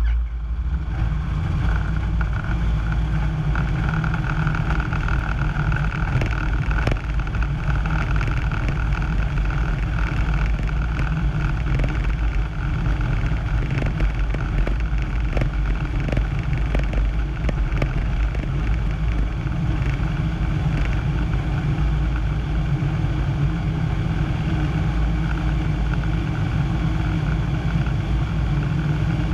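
Piper PA-25-235 Pawnee's 235 hp six-cylinder Lycoming engine and propeller running loud and steady, heard from inside the cockpit. Short knocks and rattles come and go through the middle of the stretch.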